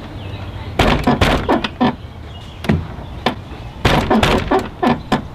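Runs of sharp clicks and knocks, several quick ones at a time, from driving speaker mounting screws into a truck door by hand with a screwdriver.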